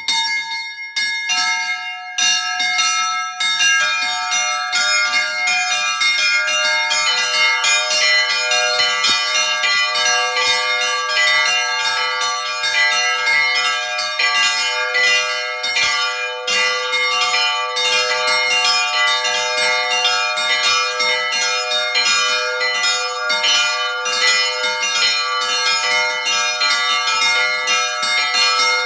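Several church bells of different pitches ringing together in a continuous, dense peal. Lower bells join in one after another, the deepest about seven seconds in.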